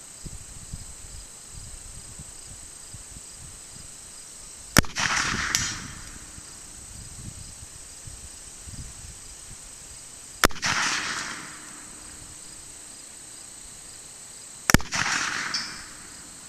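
Three shots from a .44 cap-and-ball revolver (1858 Remington New Model Army replica), about six and then four seconds apart, each trailing off for about a second. A faint tink comes under a second after the first shot: the bullet striking the steel target 100 yards off. Insects trill steadily throughout.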